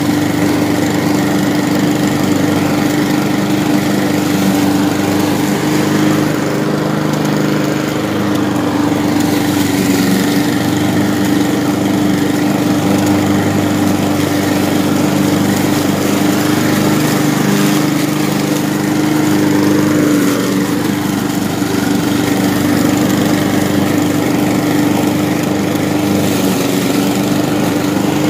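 Walk-behind petrol lawn mower running steadily while cutting grass.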